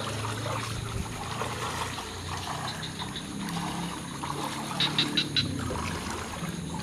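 Water trickling and dribbling in the rain, a steady wash of sound, with a quick run of sharp clicks about five seconds in.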